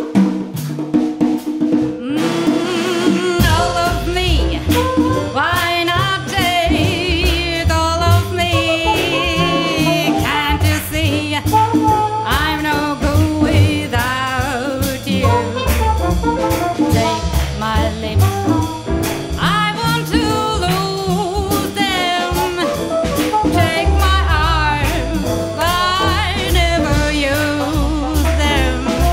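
Female jazz vocalist singing with a small jazz band backing her on double bass, drums and congas. Her voice comes in about two seconds in, and the bass joins just after.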